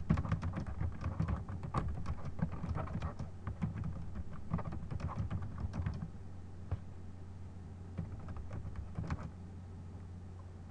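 Computer keyboard typing: a quick run of keystrokes for about six seconds, then a few scattered keystrokes that stop about nine seconds in, over a steady low hum.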